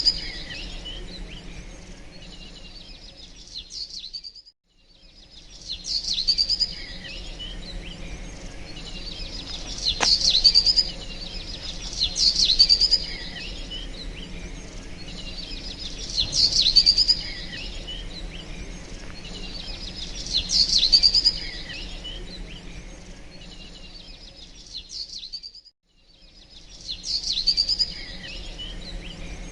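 Small birds chirping and calling in short bursts of high, rapid notes every few seconds, over a steady low background hum. The sound cuts out briefly twice, about four seconds in and near the end.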